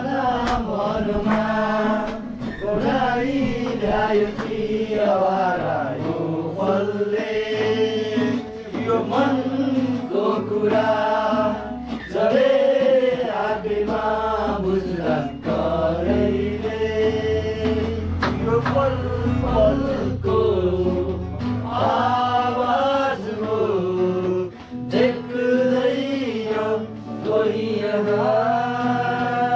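A group of voices singing a Nepali Deusi song, the Tihar-festival song sung from house to house, in phrases of a second or two.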